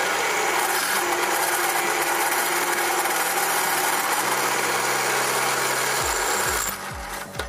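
Drill press bit cutting into the steel of a used ball-bearing ring, a loud steady grinding screech. The cutting noise stops suddenly near the end.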